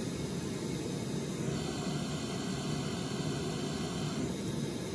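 Steady hiss of test noise played through Blue Sky Sat 6.5 studio monitors for a spectrum-analyzer check of the newly replaced tweeter. Its treble changes about a second and a half in and changes back after about four seconds, as playback is swapped between the two speakers.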